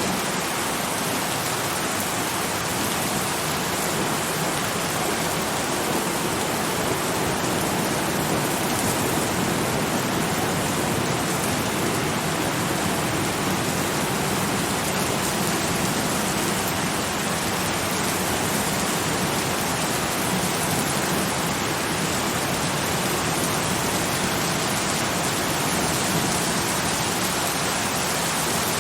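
Steady, even rain falling, a continuous hiss without distinct drops or thunder.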